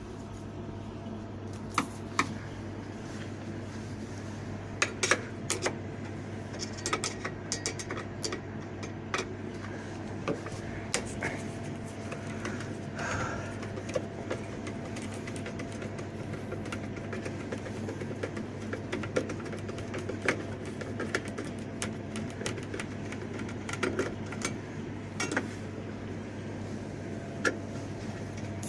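Scattered clicks and light metallic taps from hand tools and sheet-metal parts being handled while a refrigerated counter's panels are taken off, over a steady low hum.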